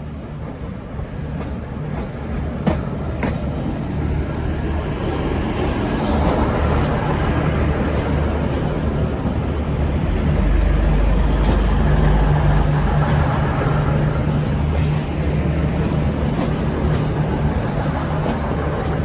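V/Line VLocity diesel multiple unit's engines running under power as the train pulls away, a steady low drone that grows louder over the first several seconds and is heaviest about ten to fourteen seconds in, with a few sharp clicks in the first few seconds.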